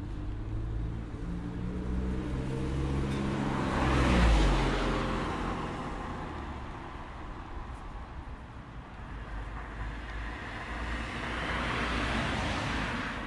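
Road traffic: a vehicle's engine approaches and passes about four seconds in, its pitch falling as it goes by. Road noise follows, and another vehicle swells up and passes near the end.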